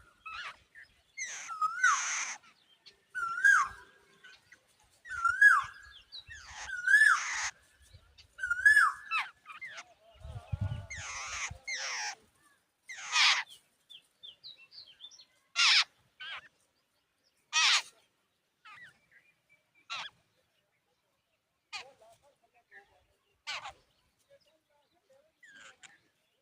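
Jungle babblers giving harsh, squeaky calls, repeated every one to two seconds at first, then shorter and more spaced out. A brief low rumble about ten seconds in.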